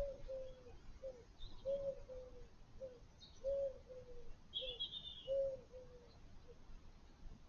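A dove cooing a three-part phrase, with a longer drawn middle note and a short last note, repeated four times. Faint high chirps from a small bird come in between.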